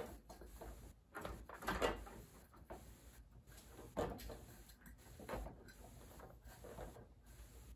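Horizontal window blind slats rattling and clattering in a series of bursts as a kitten climbs and paws at them, loudest about two seconds in and again about four seconds in.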